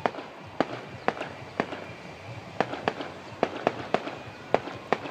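A fireworks display: a rapid, irregular series of sharp bangs, about two a second, as small shells burst.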